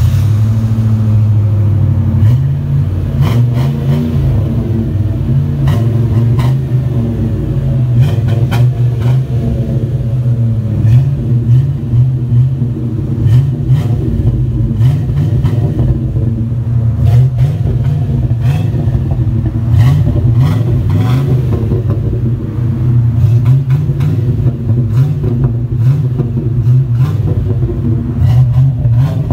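1996 Ford Bronco's 5.8-litre (351 Windsor) V8 running steadily through a 3-inch cat-back exhaust with a single high-flow catalytic converter and a Flowmaster 44 Series muffler, heard at the 4-inch tailpipe tip.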